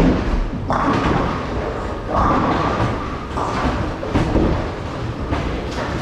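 Bowling alley lane noise: heavy thuds and knocks of balls and pins, with the rumble of balls rolling, in a large echoing hall. A sharp thud lands right at the start.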